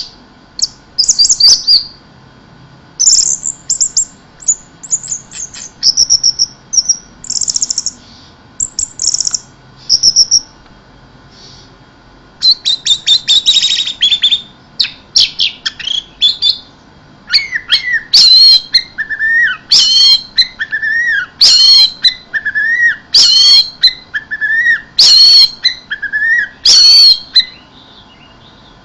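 Orange-headed thrush singing loudly in varied high, quick phrases and fast trills. From about halfway through it settles into a repeated phrase roughly every two seconds: a high note dropping to a lower slurred note.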